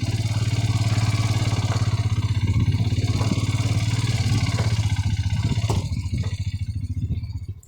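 Vehicle engine running steadily under way, then easing off near the end as the sound drops away sharply.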